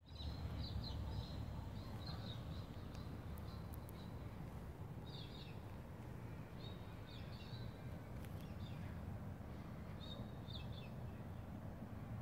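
Steady low background rumble, with a bird giving short runs of high chirps every two or three seconds.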